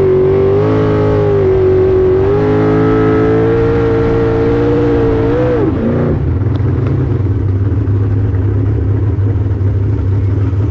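Jet sprint boat engine running hard at a steady high pitch, with small rises and dips as the throttle is worked. About six seconds in the pitch jumps briefly and then falls away to a low idle as the throttle comes off.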